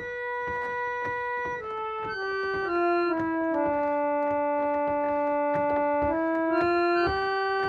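Foot-pumped reed organ (harmonium) playing slow, sustained chords, the lowest note stepping down by degrees and then climbing back up.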